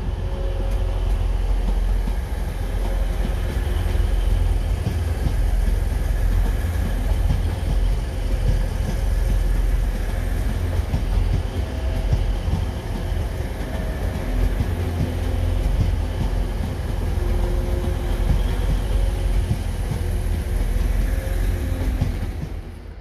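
Train running with a steady, heavy low rumble, with short faint tones coming and going over it.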